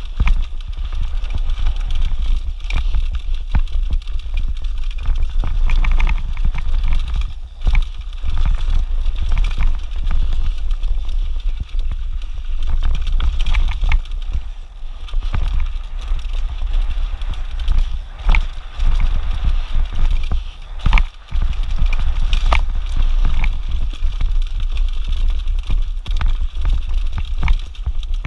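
Mountain bike riding down rocky dirt singletrack: tyres crunching over dirt and loose stones, with frequent knocks and rattles from the bike over bumps, over a steady low rumble.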